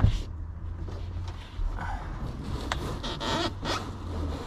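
Rustling and scraping of a fabric-covered car headliner being pushed up into the roof by hand, with a knock at the start and a few light clicks.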